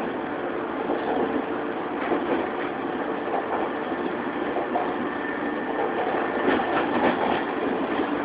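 JR 115 series electric multiple unit with resistance control, heard from inside its motor car while running: a steady rumble of wheels and traction motors with a faint hum under it. A short run of clicks comes about six and a half seconds in.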